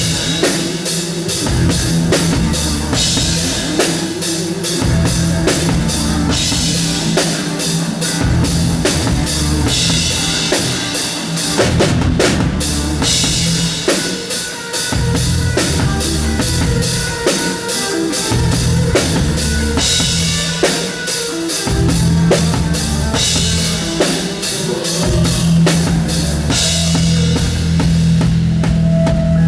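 Drum kit played through a rhythmic groove, kick and snare hits driving along with the band's music. A held tone comes in near the end.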